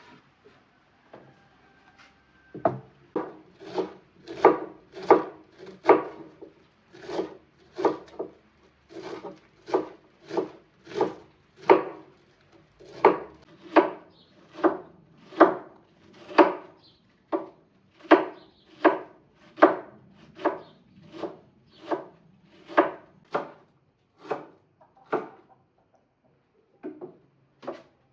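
Repeated rasping strokes of something dragged over a rough surface, about three every two seconds, starting a few seconds in and going on steadily.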